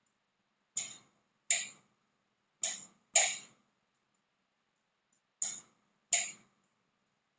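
Six sharp knocks or clatters from kitchen work at the counter, irregularly spaced, each dying away quickly.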